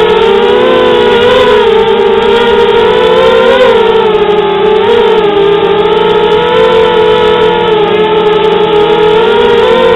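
FPV quadcopter's electric motors and propellers whining loudly as several close, steady tones. The pitch wavers up and down as the throttle changes in flight.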